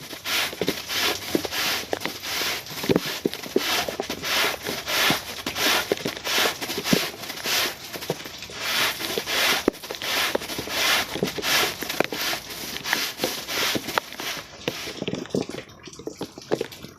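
Wet carpet being scraped with a rug-cleaning scraper in steady strokes, about two to three a second, with rain falling around it. The strokes stop about three seconds before the end.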